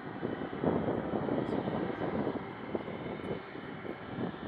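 Airbus Beluga XL's twin Rolls-Royce Trent 700 turbofans running at taxi power, a steady jet rumble with a fluctuating rush.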